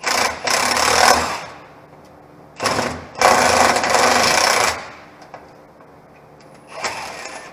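Milwaukee impact wrench hammering out the rusty belly-pan bolts on a John Deere 850B dozer. It runs in two long bursts, the second about two seconds long, then a brief short one near the end.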